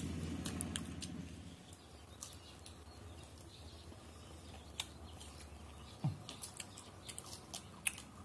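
Background music fading out in the first second or so, then a quiet stretch with faint, scattered sharp clicks and ticks.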